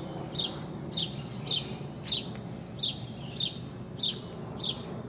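A bird chirping repeatedly, with short high chirps coming about twice a second over faint outdoor background noise.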